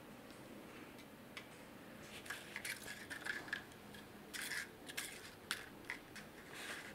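Paper coin wrappers tapping, rustling and rolling on a wooden desk as a kitten bats them about: scattered light clicks and scrapes, coming thicker from about two seconds in.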